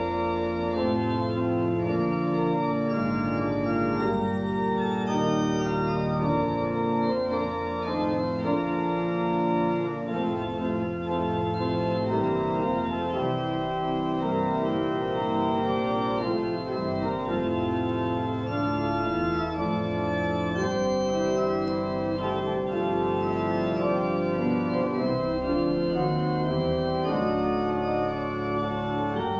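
Church organ playing a postlude of held chords that change without a break.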